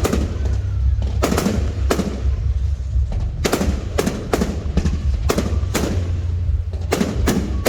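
Fireworks bursting overhead: about nine sharp bangs, some in quick pairs, each trailing off briefly, over a steady low rumble.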